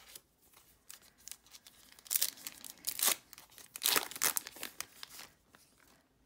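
Foil wrapper of a trading-card pack torn open and crinkled by hand: a run of short rips and crackles, loudest from about two to four and a half seconds in.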